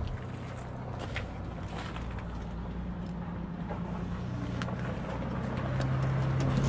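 A vehicle engine running with a steady low hum that grows louder near the end, with a few knocks as a pony's hooves step down a horse trailer's ramp.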